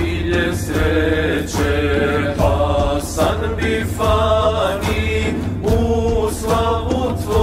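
Male vocal group singing a Bosnian ilahija in several-part harmony. A frame drum taps a regular beat and a low steady drone sits underneath.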